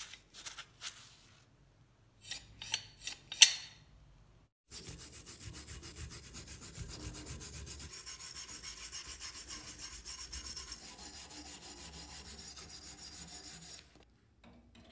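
Hand wire brush scrubbing loose surface rust off a rusty pipe wrench in rapid back-and-forth strokes. It runs for about nine seconds and stops abruptly. It follows a few sharp knocks near the start.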